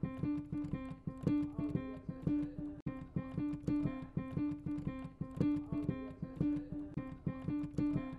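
Background music: a guitar plucking a steady, repeating pattern of single notes.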